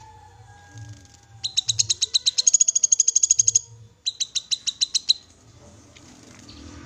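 Cucak kinoi call: two fast trills of sharp, high, evenly repeated chip notes, the first lasting about two seconds and the second about one second after a short break.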